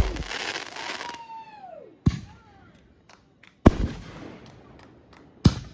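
Fireworks: a crackling fizz, then a whistle that falls in pitch about a second in. Three loud booms follow about a second and a half apart, with a few small pops between them.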